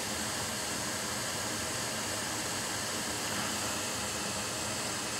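Steady, even hiss of air moving at the repair bench, with no strokes or changes.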